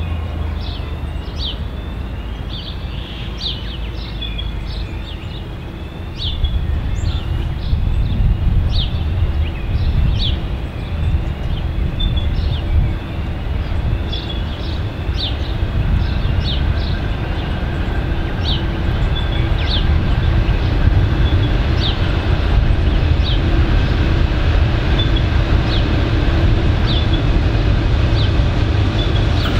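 V/Line N class diesel-electric locomotive N451 hauling a passenger train in, its diesel engine rumbling and growing louder as it approaches. A steady hum joins about halfway through. A bird chirps over and over in the background.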